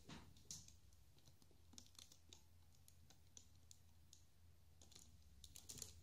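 Near silence: a few faint, scattered sharp clicks over a low steady hum, with a small cluster of clicks near the end.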